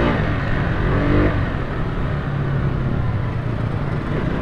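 Motorcycle engine running at idle, with a short rev about a second in.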